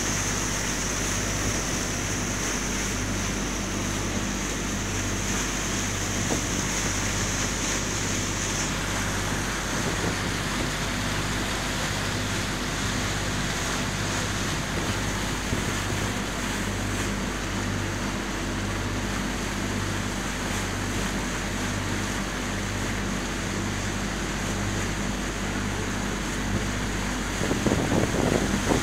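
Boat under way on open water: a steady rush of wind and water, under a low hum that pulses about one and a half times a second. Near the end, louder buffeting, like wind hitting the microphone, comes in.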